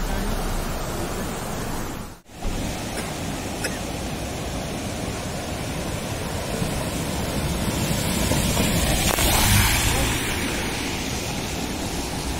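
Steady rushing of a waterfall, with a brief drop-out about two seconds in.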